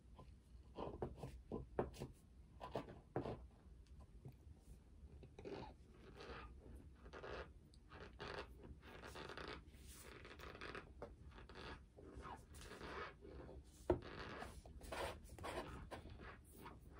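A mouthful of cornstarch, Rumford by the talk just before, being chewed close to the microphone: a run of soft, irregular crunches and squeaks, with one sharp click about two thirds of the way through. The starch gives only a little squeak, not as squeaky as the eater would like.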